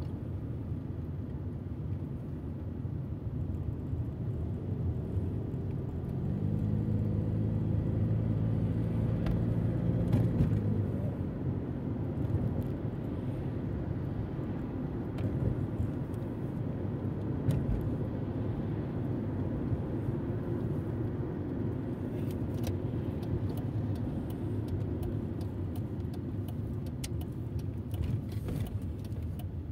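Car heard from inside the cabin while driving: engine and road noise run steadily. The engine note swells and rises a little as the car pulls away about six seconds in, then eases off about five seconds later. Light clicks and rattles come from inside the car in the second half.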